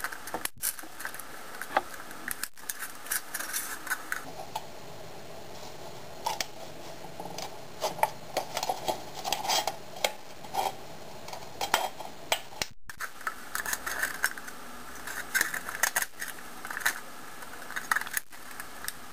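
Small scissors snipping through the thin aluminium wall of a soda can along a marked line, giving irregular metallic crinkles and clicks as the can is turned and flexed in the hand.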